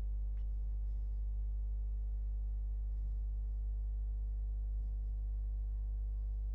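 Steady low electrical hum with a buzzy stack of overtones.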